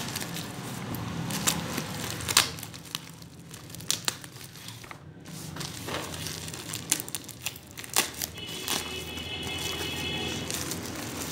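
Plastic courier mailer being snipped with scissors and then crinkled and torn open by hand: irregular crackling and sharp snips and rustles throughout.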